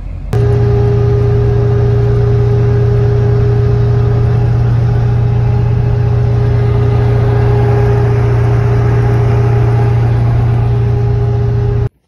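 Steady drone of a truck driving at highway speed, heard from inside the cab: a constant engine hum under tyre and road noise. It cuts in sharply just after the start and cuts off sharply just before the end.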